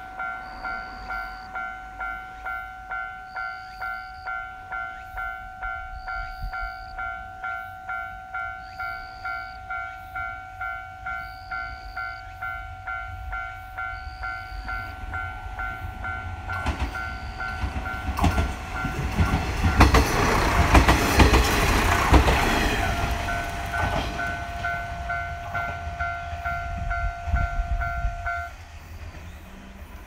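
Japanese level-crossing bell ringing, a steady electronic 'kan-kan' about twice a second, while the 'Jidai no Yoake no Monogatari' diesel railcar train (converted KIHA 185 series) approaches and rumbles through the crossing, loudest about 20 seconds in. The bell stops near the end as the crossing clears.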